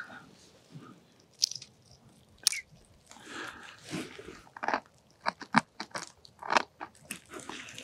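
Irregular crisp clicks and crunches from hands working a winter pike tip-up and its line at the ice hole, with a quick run of clicks about five seconds in and clothing rustle between.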